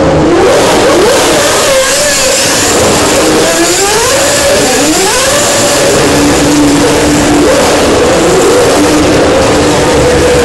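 Several GP2 race cars passing close by one after another, their 4-litre Mecachrome V8 engines revving up through the gears and then holding a steady note near the end.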